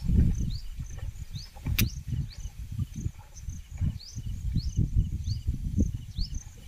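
Rice-paddy field ambience: a small creature's short rising chirps repeat two or three times a second above a faint thin high whine, over a louder, uneven low rumble. A single sharp click comes just under two seconds in.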